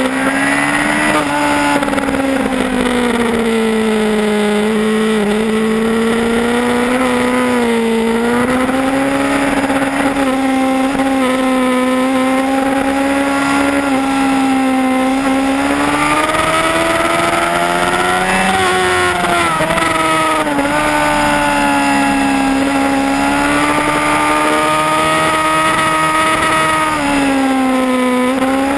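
Yamaha R1's inline-four engine running hard, heard from a camera on the bike, its pitch mostly level but dipping and climbing again a few times. A steady rush of wind sits under it.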